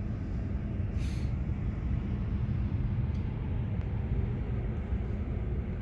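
Vehicle engine running with a steady low rumble, with a brief hiss about a second in.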